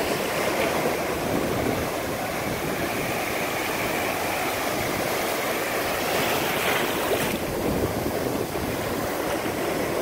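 Ocean surf breaking and washing through the shallows: a steady rushing of waves and foam.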